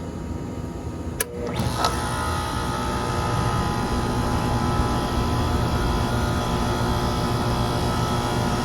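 2007 Ruud Achiever 2-ton air conditioner's outdoor unit starting up: a sharp click about a second in, a second click shortly after, then the unit comes up to a steady running hum with several steady tones.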